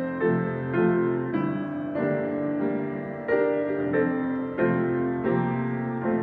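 Piano music: a slow melody, with a new note or chord struck about every half second to a second.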